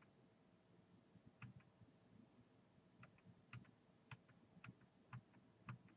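Faint, scattered short clicks over near-silent room tone, several in quick pairs about every half second from about a second and a half in: clicks from someone working a computer.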